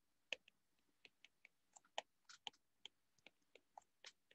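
Faint, irregular light taps of a stylus tip on a tablet's glass screen during handwriting, a few ticks a second.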